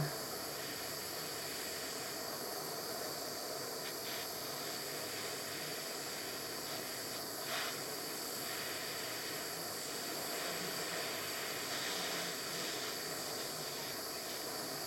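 Steady hiss of a handheld gas torch's flame, played on a silver ring and its shank to melt easy solder for drop soldering. A faint tick about halfway through.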